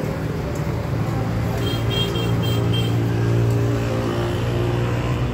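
An engine running steadily with a low hum, amid street traffic; a few short high beeps come about two seconds in.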